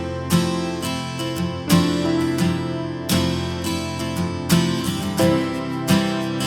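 Background music: acoustic guitar strumming, with a strum accent roughly every second and a half.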